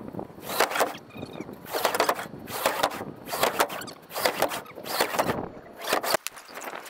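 Wooden roof sheathing panels scraping and sliding against each other as sheets are dragged across a stack in a pickup bed, in a series of rough swishes about once a second.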